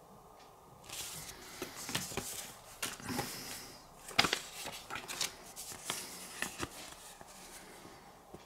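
Headphone packaging rustling and crinkling as it is handled, with several sharp taps and clicks. It starts about a second in, has its sharpest click about four seconds in, and dies down near the end.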